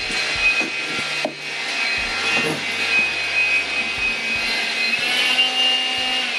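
Vacuum cleaner running: a steady motor whine over an airy rushing noise, with light knocks of the nozzle against the floor; the whine rises a little in pitch about five seconds in.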